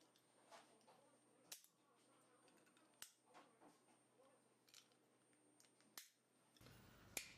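Near silence broken by four faint, sharp clicks spread a second or more apart: plastic rocker switches being fitted into their rectangular panel openings and handled.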